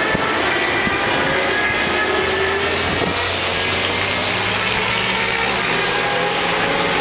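Motorcycle engine running at speed as the bike goes past on the track: a steady engine drone with a firm low hum from about halfway through.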